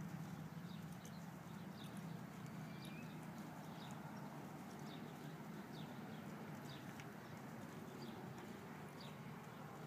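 Faint hoofbeats of an American Quarter Horse filly stepping on soft arena dirt, over a steady low hum.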